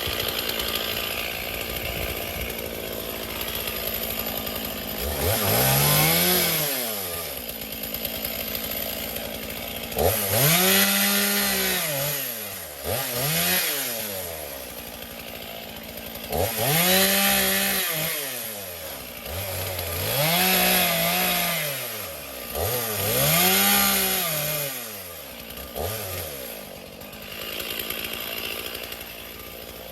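Chainsaw engine revving up and dropping back to idle, about six times in a row, as it works through a fallen branch.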